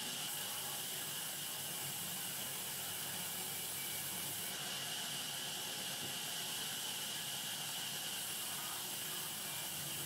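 Sawmill band saw running with a steady, even hiss.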